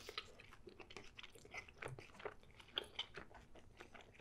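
Quiet, close-up chewing of a bite of pizza with crust, with soft, irregular crunches and mouth clicks.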